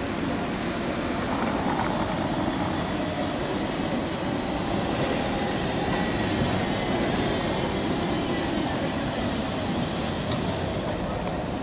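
A tram rolling over the rails across a tram junction, a steady rumble of wheels on track with street traffic noise around it and a faint high whine in the middle.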